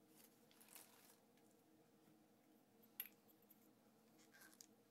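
Near silence: room tone, with one faint sharp click about three seconds in.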